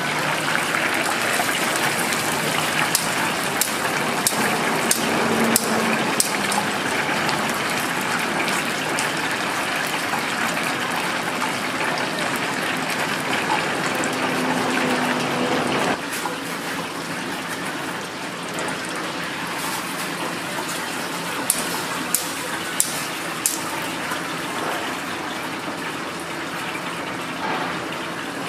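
Whole chickens deep-frying in a large vat of hot oil: a steady sizzling hiss of bubbling oil, with scattered light clicks of metal tongs and skimmer against the fryer. The sizzle drops a little in level about halfway through.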